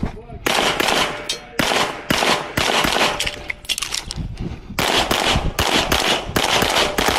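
Rapid 9mm pistol fire from a Beretta 92X Performance. Quick strings of shots come a fraction of a second apart, with a short lull about halfway through, then a dense string.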